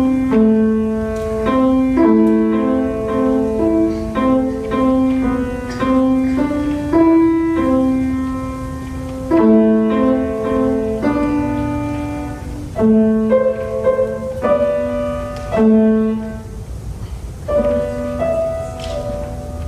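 Grand piano played solo: a simple melody of single notes in the middle register, in short phrases with brief breaks between them.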